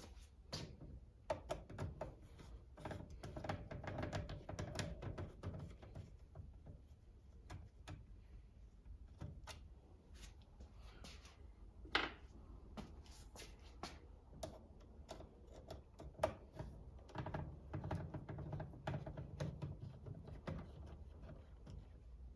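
Scattered light clicks and taps of small parts and hand tools being handled while fitting a wheelie bar, with a sharper click about halfway and another a few seconds later.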